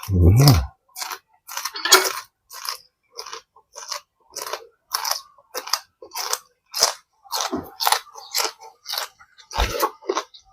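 Close-miked chewing and crunching of food, one short crisp bite or chew stroke about twice a second, with a brief hum of the eater's voice at the start.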